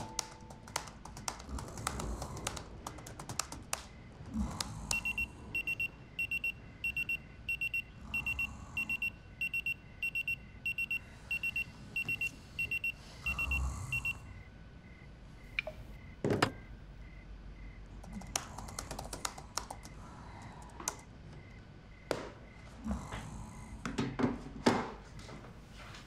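Laptop keyboard typing in scattered bursts of key clicks. A phone alarm beeps at a high pitch about twice a second for roughly nine seconds, then stops as the phone is picked up. A few dull thumps follow, the loudest near the end.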